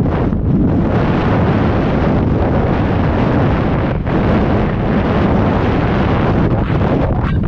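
Airflow buffeting an action camera's microphone under an open parachute: a loud, steady rush of wind noise that dips briefly twice.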